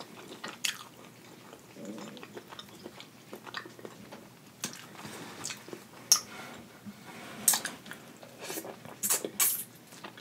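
Close-up eating sounds from a person eating sauce-dipped shrimp: wet chewing with a scatter of sharp lip smacks and mouth clicks, coming thicker in the second half.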